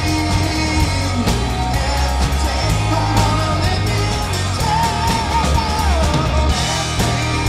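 Live rock band playing at full volume: electric guitars and a drum kit keeping a steady beat, with a man singing the lead line.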